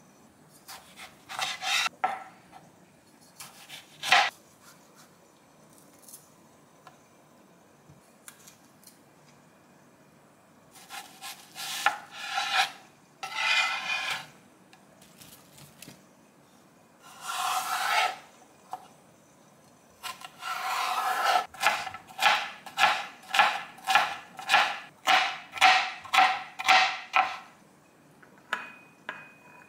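Chef's knife cutting vegetables on a cutting board: a few slow slicing strokes through an onion, then an even run of quick chopping strokes, about two a second, for several seconds near the end.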